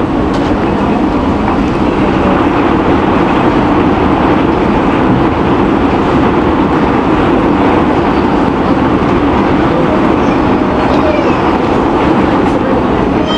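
Tornado passing over the building, heard from inside as a steady, heavy noise like a freight train.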